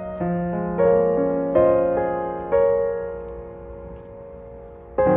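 Slow piano music: notes and chords struck about once a second, then a chord left to ring and fade for over two seconds before a new chord near the end.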